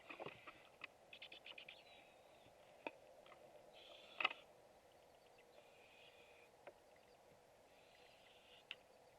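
Barred Owl owlets giving raspy, hissing begging calls, each about a second long and repeated every couple of seconds, faint. Mixed with sharp clicks and scratches in the wooden nest box, the loudest about four seconds in, and a quick run of ticks near the start.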